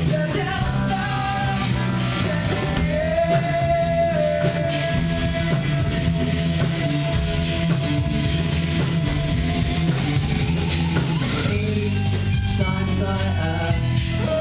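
Live rock band playing, with guitar and singing. One long held note runs from about three seconds in to about ten.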